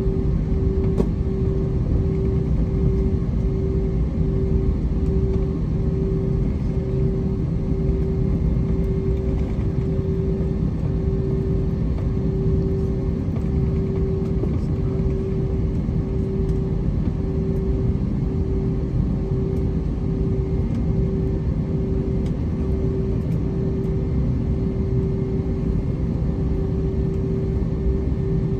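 Jet airliner cabin noise during a taxi, heard from a seat over the wing: the engines at taxi power give a steady low rumble, with a constant hum on top.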